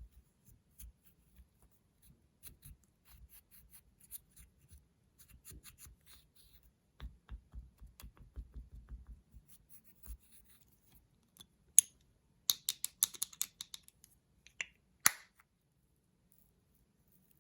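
Slime being squeezed and stretched by hand, making small sticky clicks and pops. A quick run of sharper crackling pops comes about two-thirds of the way through.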